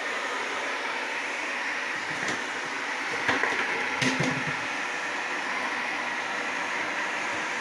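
360 C50 robot vacuum running, a steady suction-fan and brush noise with a high whine, with a few short knocks about three and four seconds in.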